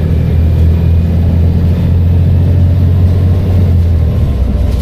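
Volvo B7TL bus's six-cylinder diesel engine running under load as a steady low drone, which eases off about four seconds in.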